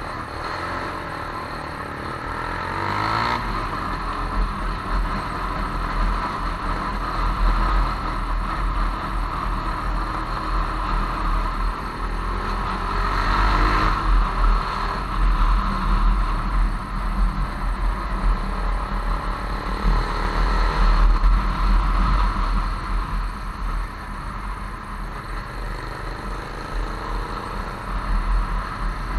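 Motorcycle ride heard from a camera on the bike: the engine runs under steady wind rumble on the microphone, swelling a few times as the bike picks up speed.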